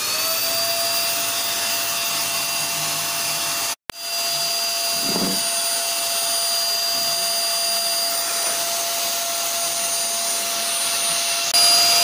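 Philips vacuum cleaner running just after switch-on, its motor whine settling onto a steady pitch over the rush of air. The sound breaks off for an instant about four seconds in, picks up again, and gets louder near the end.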